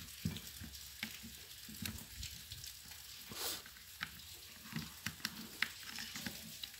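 Light, scattered clicks of a steel screwdriver prying at the metal gears and shaft of an opened electric drill, with a brief scrape about halfway through.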